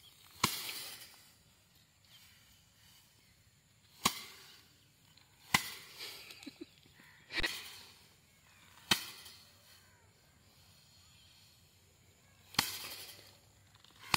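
Bundles of cut paddy (rice) beaten by hand against a wire-mesh threshing frame to knock the grain off: about seven sharp slaps a few seconds apart, each followed by a brief rustle of straw.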